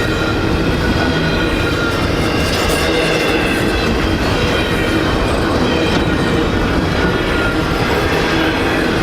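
Norfolk Southern intermodal freight train rolling past at speed, a loud steady rumble of wheels on rail with faint steady high ringing tones above it.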